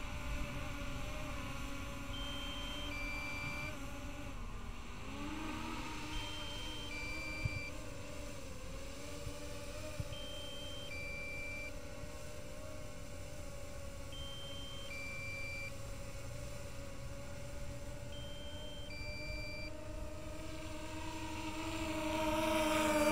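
DJI Phantom 3 Professional quadcopter's propellers humming steadily as it hovers overhead, growing louder near the end as it comes closer. A short three-note electronic alert beep repeats about every four seconds.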